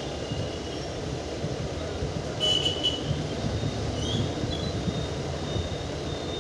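Train running on the rails: a steady low rumble, with brief high-pitched squeals about two and a half seconds in and again around four seconds.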